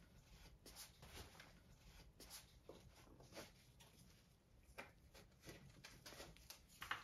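Near silence, with faint rustles and light clicks of a bikepacking frame bag and its straps being handled as it is fitted around a bicycle's top tube.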